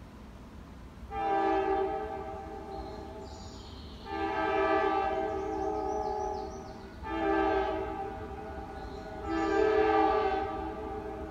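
Air horn of a GE C44-9W freight locomotive sounding four blasts as the train approaches. It plays a chord of several steady tones, and each blast starts sharply and then fades.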